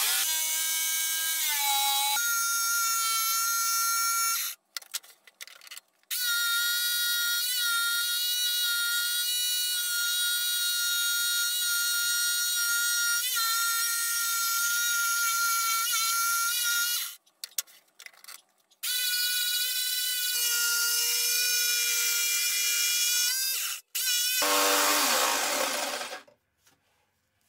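Bosch jigsaw with a fresh blade cutting through thick oak, its motor running with a steady high whine. The sound breaks off abruptly several times and picks up again. Near the end the pitch drops before it stops.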